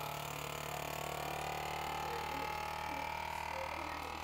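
FoodSaver GameSaver vacuum sealer's pump running, drawing the air out of a bag. It gives a steady hum with a whine that rises slightly in pitch.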